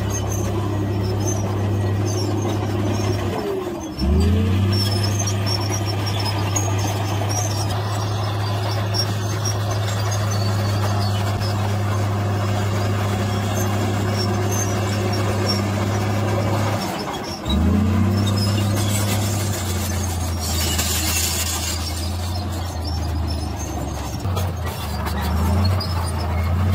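Heavy diesel engines of a tipping dump truck and a Komatsu D53P crawler bulldozer running steadily in a low drone. The drone breaks off briefly twice, about four and seventeen seconds in, and there is a short hiss about twenty seconds in.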